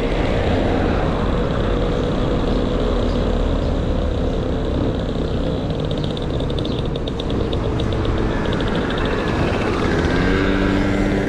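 Wind rumbling on the microphone of a moving bicycle, with motor traffic running along the street around it. A fast ticking sets in about halfway through and again near the end.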